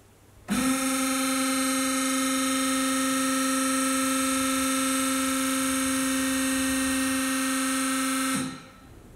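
Kasto PSB 4 power hacksaw's motor running while the saw bow is raised: a steady, even whine of several tones, with no sawing strokes. It starts abruptly about half a second in and winds down near the end.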